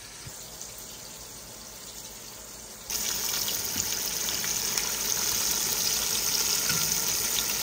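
Battered shrimp deep-frying in oil at about 350°F: a steady crackling sizzle that starts suddenly about three seconds in, after a faint, quiet stretch.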